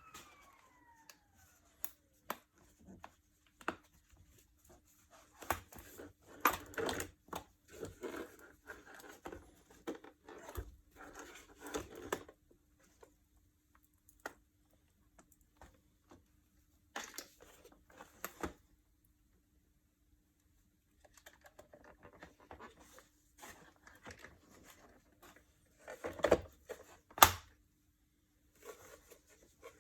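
Hands handling the plastic parts of a vacuum cleaner: scattered clicks, taps and rustling scrapes, pausing for a couple of seconds midway, with two sharper knocks near the end. The motor is not running.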